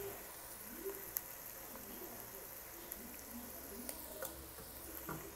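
Faint, steady sizzling from a pot of palak chicken still on the gas stove, with a few light clicks.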